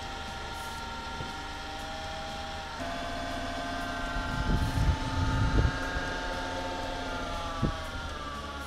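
2001 VW Jetta's 12-valve VR6 engine running with an uneven idle: its pitch steps up about three seconds in, rough louder surges follow, and the pitch sags back down near the end. The weird idling and revving comes from vacuum leaks.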